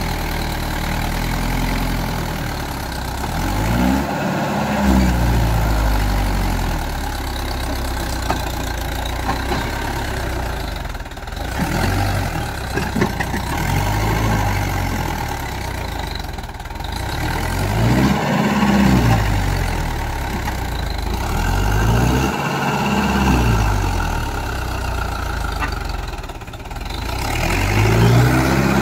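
Mahindra Yuvo 575 tractor's diesel engine pulling a loaded trailer, its revs rising and falling several times as the throttle is worked.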